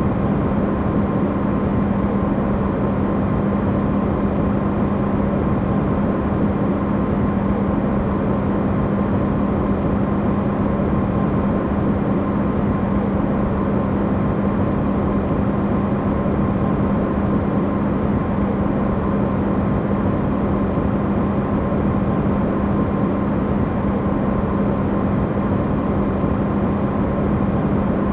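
Electrolux refrigerator running, recorded amplified: a steady low hum with a fainter higher whine over an even hiss, unchanging throughout.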